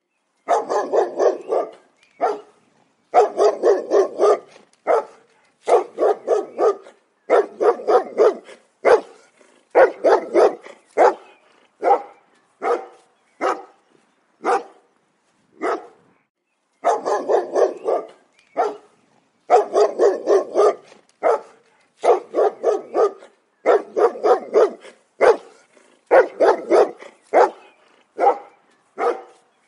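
A dog barking repeatedly in quick runs of several barks, with short pauses between the runs.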